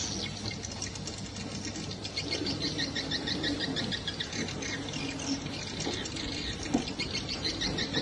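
Swiftlets twittering: quick, rapidly repeated trains of high chirps, the call sound that swiftlet houses use to draw the birds in, over a low steady rumble.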